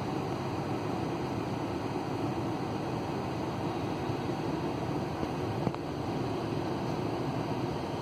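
Steady low rumble and hiss of running machinery, heard from inside a closed vehicle cabin, with one faint click about two-thirds of the way through.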